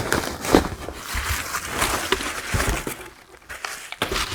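Packing material rustling and crinkling as it is handled and pulled out of a shipping box, with irregular crackles.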